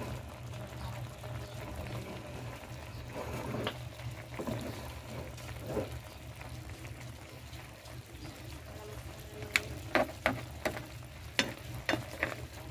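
Coconut milk boiling and bubbling in a pot with crabs, squash and string beans, over a steady low hum. A run of sharp pops comes in the last few seconds.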